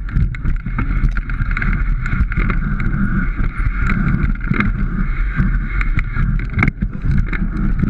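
Mountain bike ridden fast down a rocky dirt trail: a steady rush of wind over an action camera's microphone, with the rattle and knocks of tyres and frame over rocks and roots.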